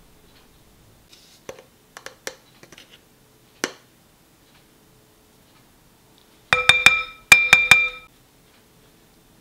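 A utensil tapped against the rim of a glass mixing bowl: six ringing clinks in two quick sets of three, knocking potato starch off into the meat and vegetable mix. A few lighter clicks come earlier.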